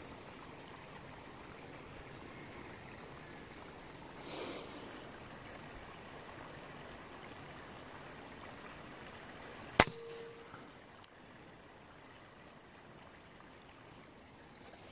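Shallow stream trickling steadily, with a single sharp crack of an air rifle shot about ten seconds in. A soft, brief sound rises and fades about four seconds in.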